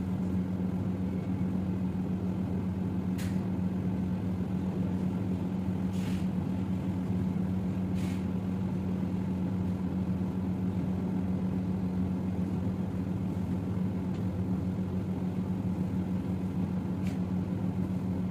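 Steady machine hum at an even level, with a few faint clicks scattered through it.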